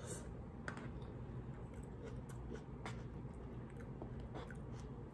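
A person chewing a mouthful of rice noodles, with a few soft scattered clicks and taps, over a low steady hum.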